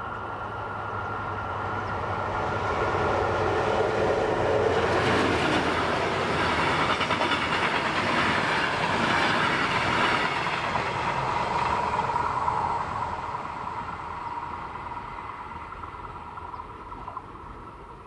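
Express passenger train passing over a level crossing, its wheels clattering on the rails. It builds over the first few seconds, is loudest in the middle and fades away over the last several seconds. The crossing's warning bell sounds as a steady tone underneath.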